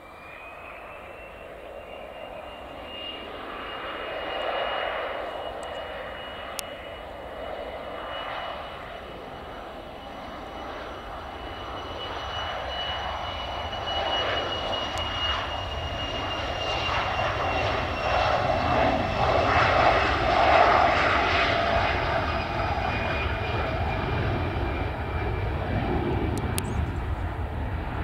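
Embraer Legacy 650E business jet's twin Rolls-Royce AE 3007 turbofans at take-off power. A high whine rises as the engines spool up at the start, then holds steady over a roar that grows louder through the take-off roll and climb-out, loudest about two-thirds of the way through.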